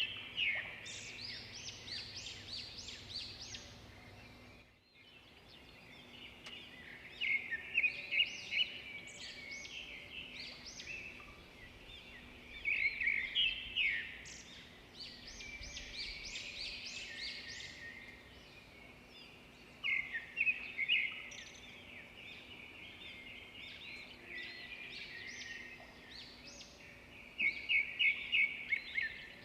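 Songbirds singing, a steady stream of high chirps and short trills, with a louder burst of rapid repeated chirps every six or seven seconds. A faint steady hum sits beneath.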